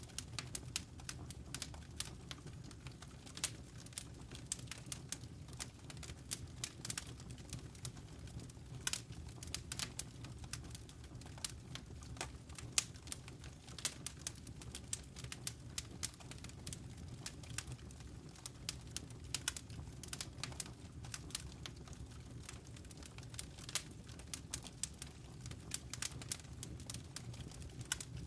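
Wood fire burning in a fireplace, crackling steadily with irregular small snaps and a few louder pops over a low rumble of the flames.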